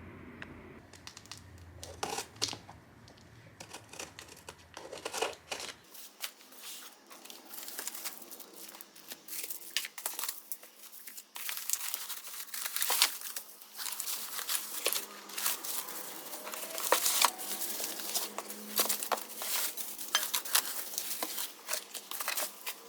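Packaging being handled, crinkling and crackling in many quick irregular bursts, with some tearing sounds.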